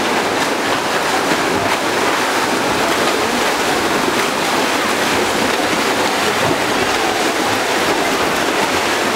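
Several swimmers doing butterfly, their strokes making a steady churning and splashing of pool water, echoing in an indoor pool hall.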